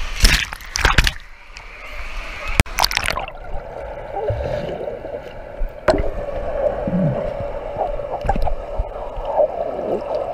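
Pool water splashing as the microphone is dunked, twice in the first three seconds, then muffled underwater gurgling and bubbling heard through the submerged camera.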